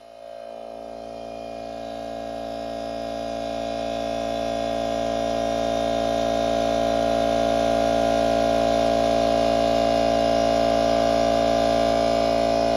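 DeWalt 60V FlexVolt cordless 2.5-gallon pancake air compressor kicking on and running: a steady motor-and-pump hum with many even tones that grows louder over the first six seconds or so, then holds.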